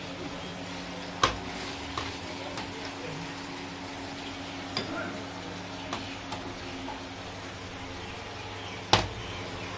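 A steel ladle scooping curry and knocking against a large steel serving platter: two sharp clanks, one about a second in and a louder one near the end, with a few lighter ticks between. A steady low hum runs underneath.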